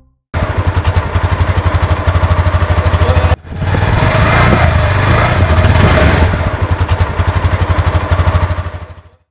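Suzuki Intruder 150 motorcycle's single-cylinder engine running through its stock exhaust with an even, rapid beat. After a brief break it runs louder, being revved, and then fades out near the end.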